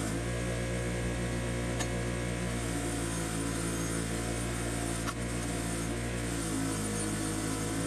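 Background music with held chords that change every few seconds.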